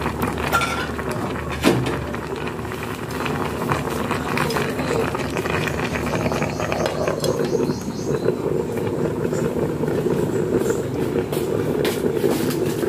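Jackfruit pieces cooking in a hot non-stick pan, with a steady crackle of simmering and a sharp knock about two seconds in. Partway through, a glass lid is set over the pan.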